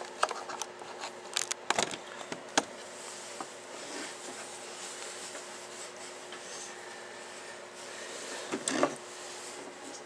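Hands handling a length of solar cable and tools on a table: a scatter of sharp clicks and knocks in the first few seconds, then a short rustling scrape near the end, over a steady low hum.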